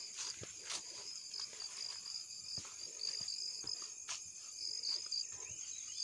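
A high-pitched chorus of insects shrilling steadily, with irregular scuffs of footsteps and grass brushing along a dirt footpath.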